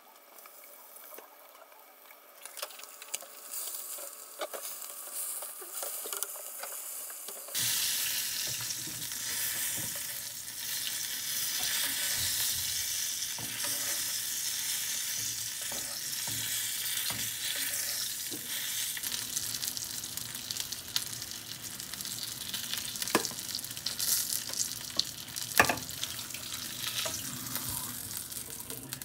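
Whole Waigeo sea perch pan-frying in hot oil: a quiet sizzle under a glass lid at first, turning suddenly louder and brighter about a quarter of the way in and staying steady. A couple of sharp metal clicks of spoon and spatula against the pan come near the end.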